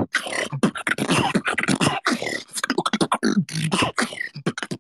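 Solo beatboxing: a fast, dense run of mouth-made kick, snare and click sounds, with short sliding bass tones woven between the hits.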